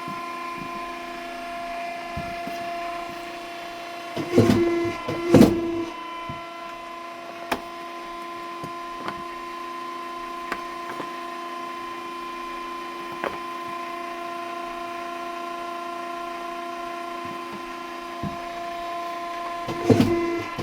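A shoe-repair machine motor humming steadily at a constant pitch while the sole is cut out. There are two loud knocks about four and five seconds in and two more near the end, with a few light ticks between them.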